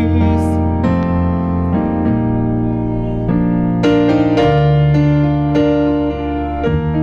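Yamaha Motif XF8 keyboard playing worship-music accompaniment in an electric-piano voice, a run of held chords that change about once a second.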